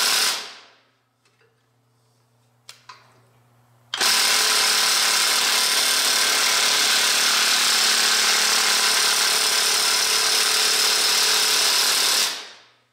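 Handheld power drill running steadily, driving a cutting tool in a Kubota engine block's balancer shaft bore. It winds down in the first second, stays off for about three seconds with two faint clicks, starts abruptly and runs for about eight seconds, then winds down again near the end.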